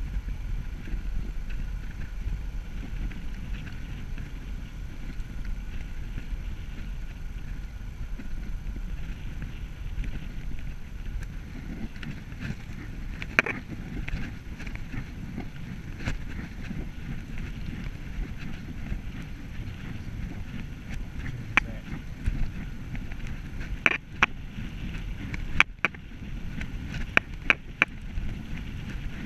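Bicycle rolling steadily along a tarmac path: a constant low rumble of tyres and wind on the microphone. Sharp clicks come now and then, with several close together near the end.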